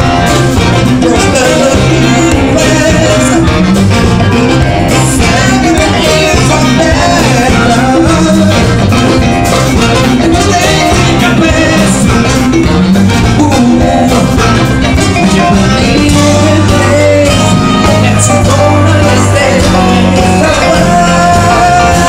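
Live band playing a funk-soul number, with keyboards, drums and voices together, loud and unbroken.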